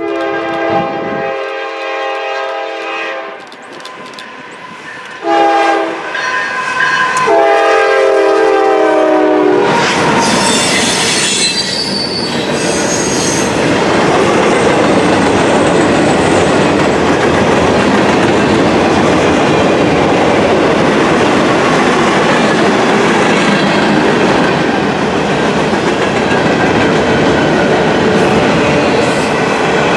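Locomotive air horn sounding two long blasts, the second dropping in pitch at its end as the locomotive passes. Then the train rolls by with steady wheel rumble and a brief high wheel squeal.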